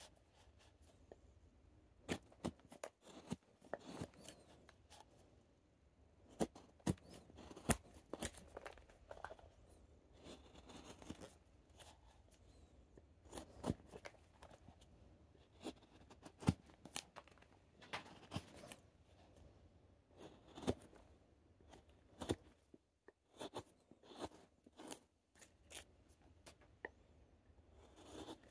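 Carving knife slicing thin shavings off the stem of a wooden goblet: a run of irregular short cutting strokes, some in quick succession.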